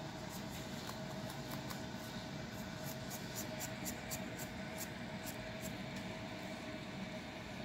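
Quick, short scratching strokes on a dry, flaky scalp through coarse natural hair, about four a second in the middle, thinning out near the end.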